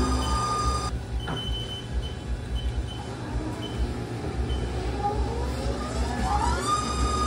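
Haas TL-2 CNC lathe spindle drive: its steady whine cuts off about a second in as the spindle stops. About five seconds in a rising whine climbs as the spindle spins back up, settling into the steady whine again near the end, over a low machine rumble.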